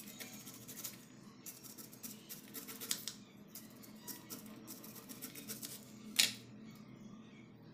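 A paring knife slicing kernels off a raw corn cob onto a wooden cutting board: runs of quick, crisp cuts, with one louder sharp stroke about six seconds in.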